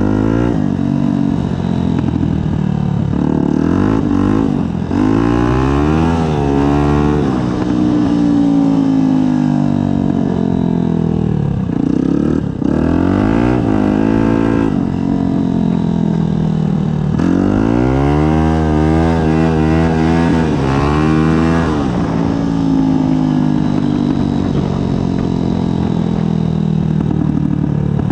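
Yamaha WR 125's single-cylinder four-stroke engine through a Black Widow aftermarket exhaust, ridden hard. Its pitch climbs steeply and falls back again and again as the throttle is opened and closed, with the biggest run-ups about five, thirteen and eighteen to twenty-one seconds in.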